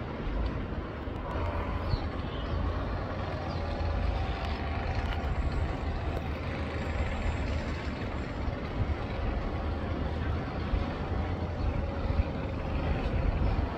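Steady low outdoor rumble, with faint higher tones running over it.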